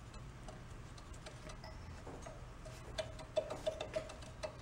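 Light hammer taps on the camshaft pin of a seized Briggs & Stratton 6S engine, trying to drive the pin out: metal-on-metal ticks, each ringing at the same pitch. They are sparse and faint at first, then come quicker and louder from about three seconds in.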